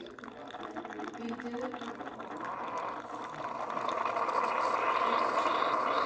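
Single-serve coffee brewer dispensing coffee in a thin stream into a mug, the liquid splashing and filling with the machine's hissing brew noise, which grows louder about halfway through.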